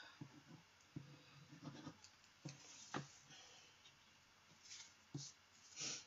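Faint paper-crafting handling noises: a liquid-glue applicator rubbed over cardstock, the card panel shifted and set down, with a few soft scratches and light taps.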